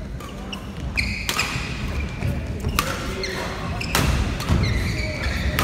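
Badminton rackets striking a shuttlecock in a fast doubles rally, a sharp hit about every second and a half. Court shoes squeak briefly on the floor between the hits.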